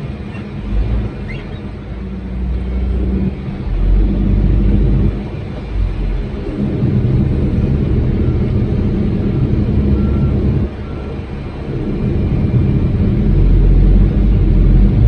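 Dump truck's engine running: a loud, steady low rumble that swells and eases in level.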